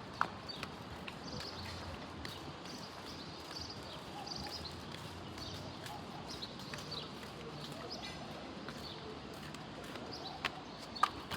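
Footsteps of a person walking, as a run of short taps over steady background noise, with brief high chirps here and there.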